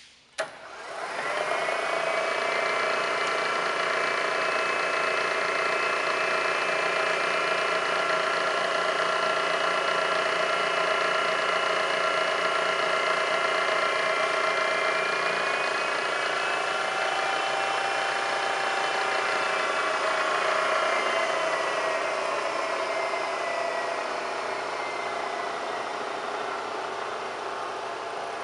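Bridgeport Series 1 variable-speed milling machine switched on with a click, its spindle motor and drive spinning up within about a second and a half to a steady whine. About halfway through the whine rises in pitch, then slides back down and quietens over the last several seconds as the spindle speed is changed on the variable-speed drive.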